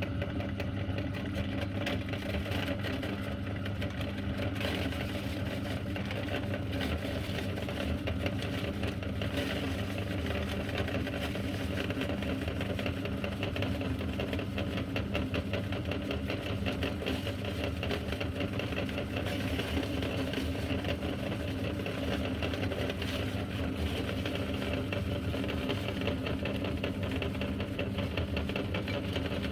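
Electric meat grinder motor running steadily while it grinds crunchy cookies, a constant motor hum mixed with fine rapid crackle.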